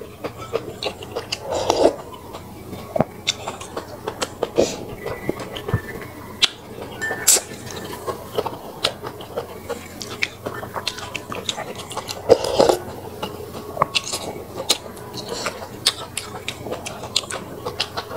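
Close-miked eating: a metal spoon and wooden chopsticks clicking and tapping against a glass bowl of fish congee broth, with a few louder slurps from the spoon and chewing.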